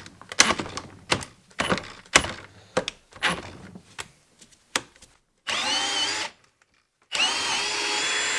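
HILTI cordless hammer drill in drill mode, boring into a wooden post. For the first five seconds the bit keeps binding and stalling, giving short jerky bursts about twice a second. Then the motor spins freely with a high whine twice, the second run lasting to the end. The drill is failing to finish the hole.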